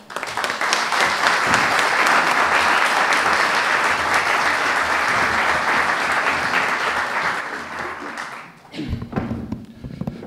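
Audience applauding, a dense steady clatter of clapping that dies away about eight seconds in. A few knocks follow near the end.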